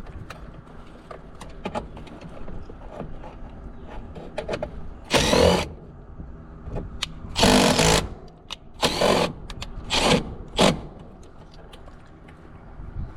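A cordless power tool run in five short bursts of a fraction of a second each, the longest about half a second, with faint clicks and handling between.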